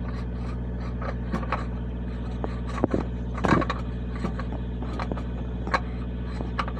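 Hands working a new filter into its plastic housing on a diesel engine: scattered clicks and scrapes, with a couple of louder clunks about three seconds in, over the steady low drone of an idling engine.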